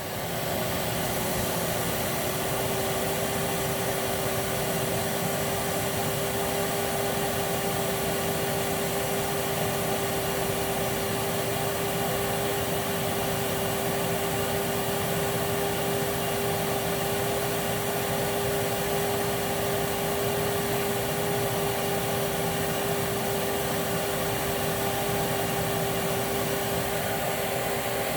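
Hoover WindTunnel Plus canister vacuum's motor running steadily under a suction test: a loud, even whine with a constant tone and a rush of air. It steps up in level right at the start and then holds.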